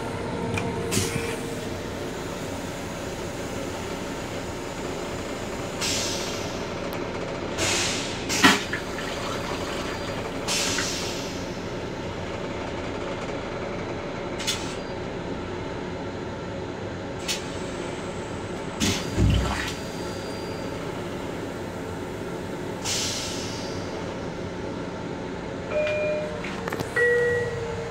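Toilet in a Long Island Rail Road M7 commuter railcar flushing: several short rushes of air and water and a sharp click, over the steady running noise of the train car. A low thump about two-thirds of the way through, and a few short beeps near the end.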